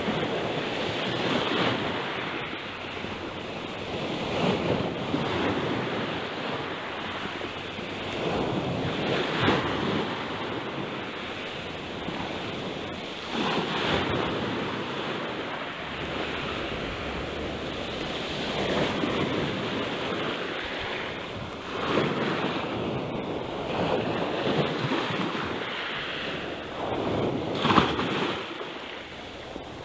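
Sea waves breaking and washing over a boulder shore close by, the surf surging every few seconds, with wind buffeting the microphone. One louder surge near the end.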